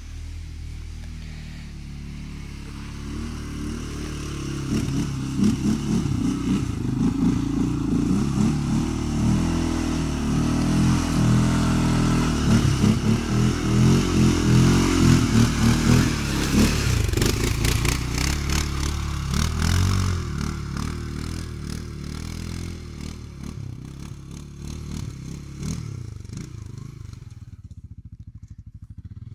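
CFMOTO CF850 ATV engine revving unevenly as the quad climbs a rutted dirt slope. It grows louder, is loudest as it passes close by about halfway through, then fades as it pulls away up the hill.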